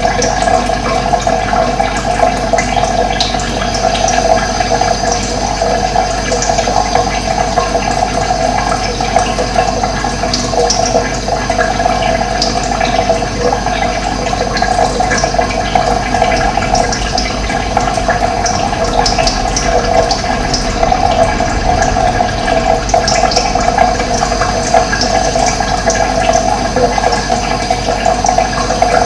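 Running water with a steady rushing sound, and brief, faint high bird chirps scattered through it.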